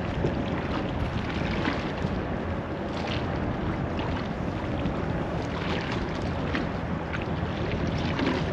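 Wind rushing over the microphone with water washing at the shore, and a low steady hum underneath.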